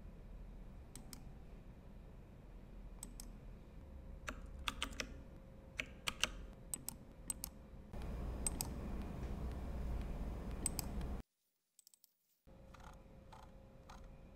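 Computer keyboard typing and clicking, scattered and irregular, over a low steady background hum, with about a second of dead silence near the end.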